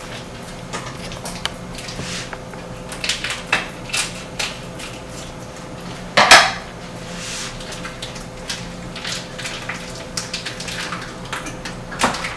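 Kitchen handling sounds: scattered clinks and knocks of dishes and utensils at a sink and countertop, with one much louder knock about six seconds in. A faint steady hum runs underneath.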